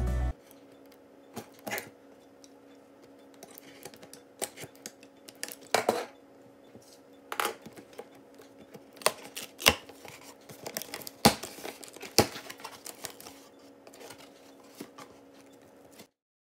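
Utility knife cutting the packing tape on a cardboard box, then the box flaps being pulled open: scattered scrapes and sharp cardboard clicks and knocks over a faint steady hum. Intro music cuts off right at the start.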